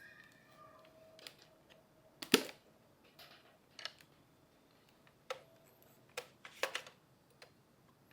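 Scattered light clicks and knocks of small objects being handled, the loudest about two seconds in, with a few more spread through the rest.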